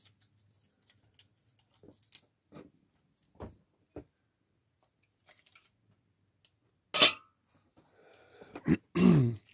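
Wood fire crackling in a small wood-burning stove, with scattered sharp pops. There is a louder clatter about seven seconds in, and near the end a handling noise with a short creak that falls in pitch.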